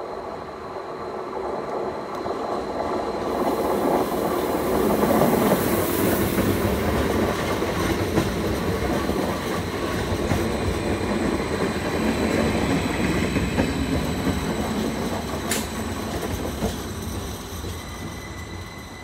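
Vy Class 75 Stadler FLIRT electric multiple unit running along the platform, the rumble of its wheels on the rails swelling over the first few seconds, holding, then fading near the end. A single sharp click sounds about fifteen seconds in.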